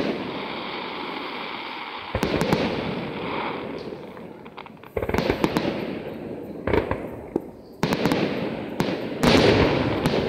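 Aerial fireworks shells bursting, about half a dozen sharp bangs, each followed by a long fading rumble, with bouts of fast crackling in between.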